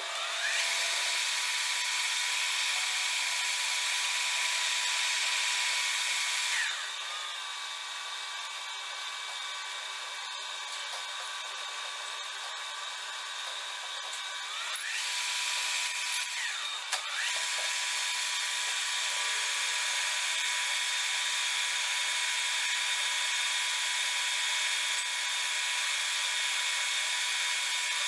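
Metal lathe spindle spinning up with a rising whine and running steadily, then winding down about 7 s in. It starts again about 15 s in, stops and restarts around 17 s, and runs on while a twist drill bores into the metal workpiece held in the chuck.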